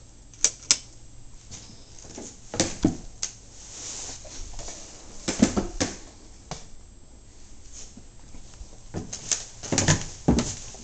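Footsteps and knocks on bare wooden floorboards and stair treads: a few sharp thuds at a time with pauses between, growing more frequent near the end as the steps start down the stairs.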